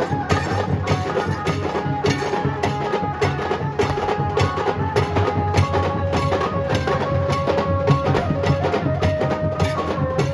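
Nasik dhol ensemble playing: heavy dhol drums with sharp, evenly paced strokes over them, and a held melody line sounding on top.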